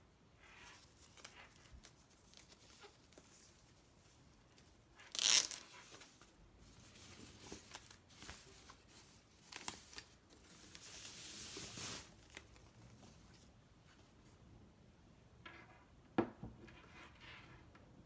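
Packaging being opened by hand: a short loud tearing rip about five seconds in, more tearing and rustling of packaging a few seconds later, and a sharp click near the end.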